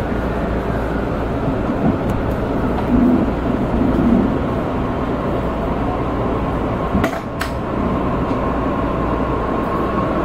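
E531-series electric train pulling away from a standstill, heard from inside the car: a steady rumble with the traction motor whine rising in pitch as it picks up speed. Two sharp clicks come about seven seconds in.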